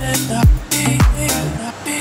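Background electronic dance music with a deep kick drum about twice a second. It cuts off about three-quarters of the way in, leaving the hiss of road traffic.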